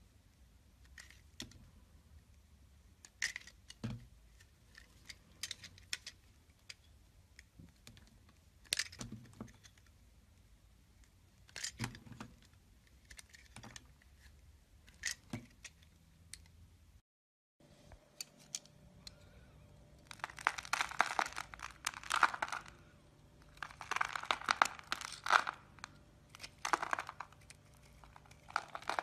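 A utility-knife blade slicing thin strips off a bar of soap, a sharp click with each cut every one to three seconds. After a short break, a blade scraping and shaving a dry bar of soap into curls, dense crackling and crunching in bursts, louder than the slicing.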